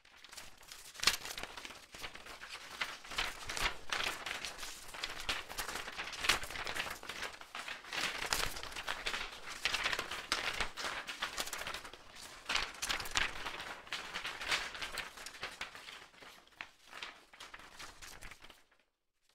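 Irregular crinkling and rustling of packaging being handled: comic books and their mailing envelope being unpacked. It stops shortly before the end.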